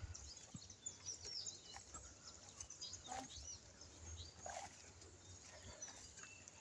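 Faint bird chirping: many short high calls sweeping up and down in pitch, over a low rumble.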